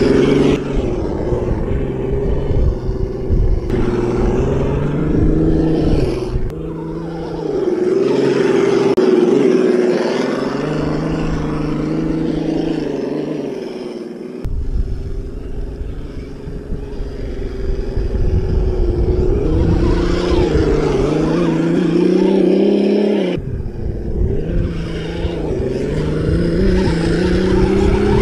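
Electric motor and geared drivetrain of an FTX Kanyon scale RC crawler whining as it crawls over dirt mounds. The pitch rises and falls with the throttle. A low rumble underneath cuts out and returns abruptly a few times.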